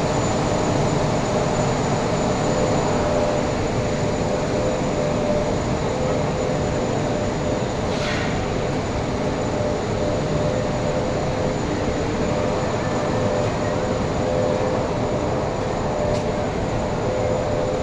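Workshop machinery running steadily: an even rumble with a constant hum, and a faint click about halfway through and again near the end.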